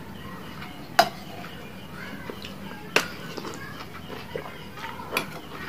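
Metal spoon clinking against a ceramic soup bowl, three sharp clinks, the first two the loudest, with soft slurping and chewing of meatball-soup noodles and broth between them.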